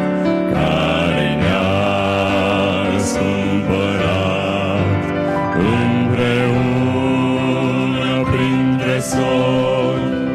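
Male vocal quartet singing a song in Romanian in close harmony into microphones, the voices held with vibrato over keyboard accompaniment.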